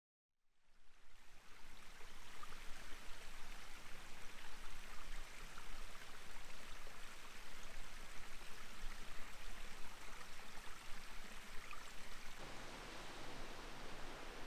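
Steady rushing outdoor ambience, fading in over the first second or two, with a slight shift in tone about twelve seconds in.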